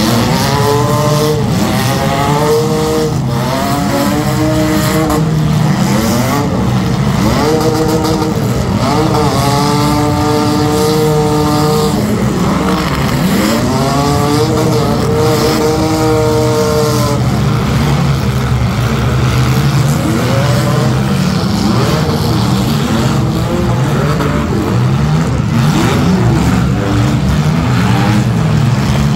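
Engines of several compact demolition derby cars revving hard at once, their pitches repeatedly climbing and dropping over one another above a steady rumble. The revving is loudest in the first half and settles toward a lower, steadier running sound later.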